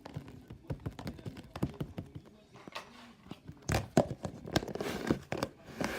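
Slime being squeezed and worked by hand, making quick irregular sticky clicks and squelching pops that grow busier and louder about halfway through.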